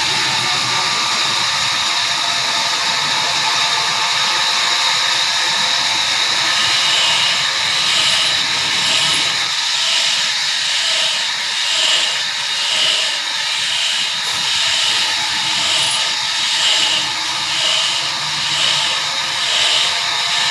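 Sawmill saw cutting through a hardwood walnut log: a loud, steady high whine and hiss, joined about six seconds in by a regular pulsing, roughly once a second.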